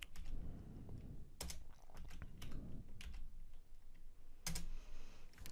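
Keys tapped on a computer keyboard at an irregular pace: many light keystrokes, with a few louder ones.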